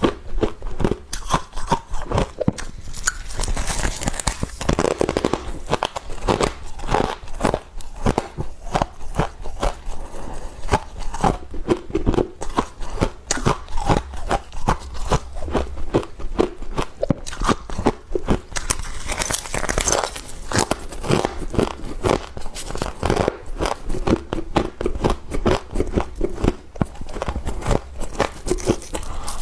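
Humidifier freezer frost being bitten and chewed right at the microphone: a dense, continuous run of crackly crunches.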